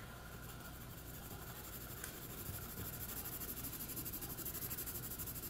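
Chameleon Color Tones colored pencil shading lightly on paper: a faint, soft scratching of quick repeated strokes that grows a little louder from about halfway.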